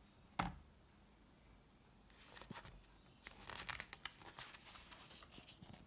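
Pages of a hardcover picture book being handled and turned: a single sharp tap about half a second in, then a few seconds of paper rustling and sliding as a page turns over.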